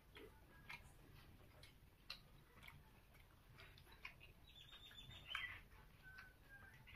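Near silence with faint, scattered clicks of eating by hand from a steel plate, fingers and food against the metal, with a brief faint high tone about five seconds in.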